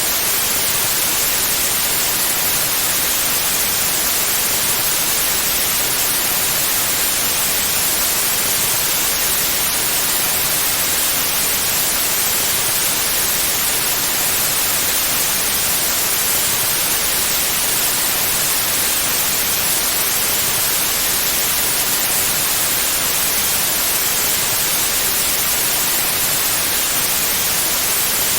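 Pure white noise: a steady, unchanging hiss, strongest in the high frequencies.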